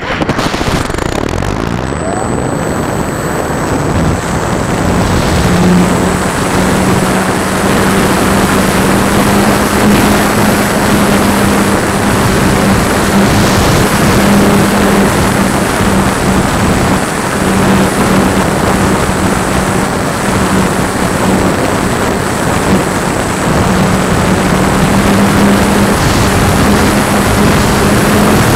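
Electric motor and propeller of a Thermal Rider EP radio-controlled glider running steadily under power, recorded on the plane itself. A steady low hum sits under heavy wind rush over the microphone.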